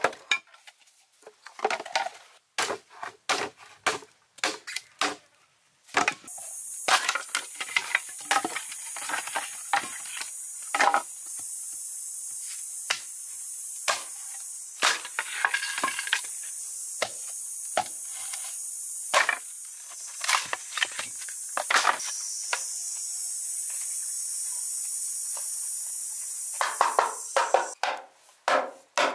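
A machete chopping and splitting green bamboo: a long run of sharp, irregular wooden knocks and splintering cracks. A steady high-pitched hiss comes in about six seconds in and runs under the strikes until near the end, where a quick cluster of knocks follows as bamboo slats are tapped into place.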